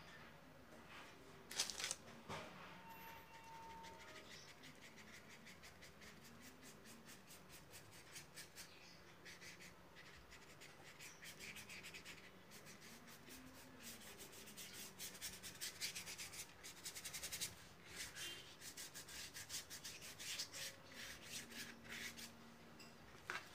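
Paintbrush stroking and scratching across a painted board in quick, faint strokes, denser and quicker in the second half.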